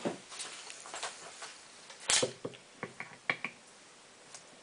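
A soap-mould divider being worked loose from hard, brittle salt soap with a small hand tool: a knock about two seconds in, then a few sharp clicks.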